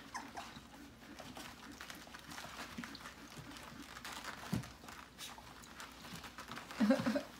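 Two-and-a-half-week-old Siberian husky puppies shuffling and scrabbling about on a soft padded whelping-box liner, a light rustling with small scattered clicks. Near the end comes a brief, louder, low vocal sound.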